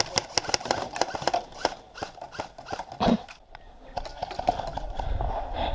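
Airsoft guns firing: a rapid run of sharp clicking shots, several a second, that thins out after about two seconds into scattered single shots.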